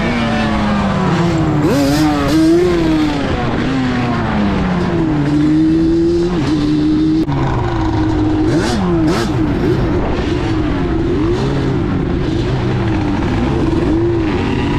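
Yamaha Banshee's twin-cylinder two-stroke engine running as the quad is ridden, its pitch repeatedly rising and falling as the throttle is worked up and down.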